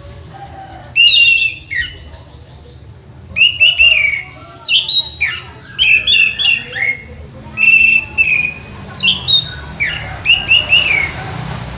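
Orange-headed thrush (anis merah) singing: loud, varied phrases of short sweeping notes, mostly falling in pitch, given in quick runs with brief pauses.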